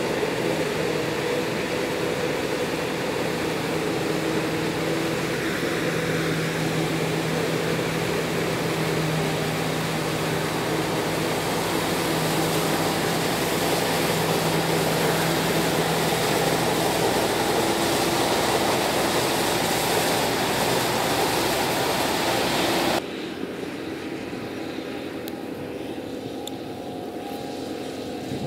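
Claas Jaguar 980 self-propelled forage harvester running steadily under load, chopping corn and blowing silage out of its spout into a wagon: a dense, even machine drone with a few held tones. About 23 seconds in it cuts off suddenly to a quieter steady sound of a Fendt tractor pulling a loaded silage wagon.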